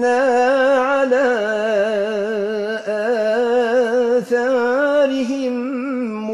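A man reciting the Quran in the Maghrebi style, drawing out one vowel into a long held note. The pitch wavers and is ornamented throughout, with a couple of brief dips.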